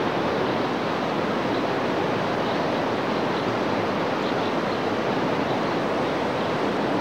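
Steady rush of river water, an even roar without breaks.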